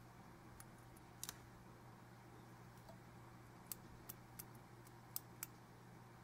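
Near silence: room tone with a steady low hum and a handful of faint, sharp clicks, most of them in the second half.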